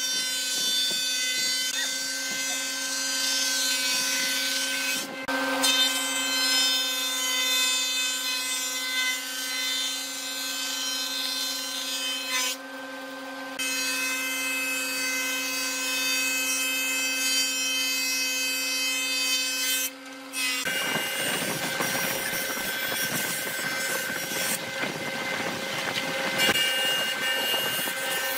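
Wood thickness planer running and planing boards as they feed through: a steady motor hum under the hiss of the cutterhead taking shavings. About two-thirds of the way in, the sound changes abruptly to a jointer planing the face of a board pushed across it by hand, a denser cutting noise without the steady hum.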